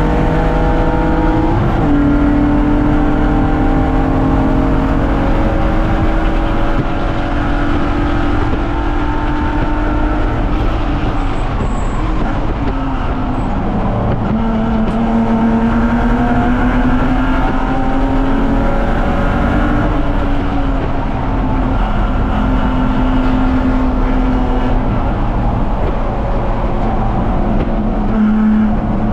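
BMW 330ci's straight-six engine running hard under racing load. Its pitch sinks and climbs several times as the car brakes, shifts and accelerates.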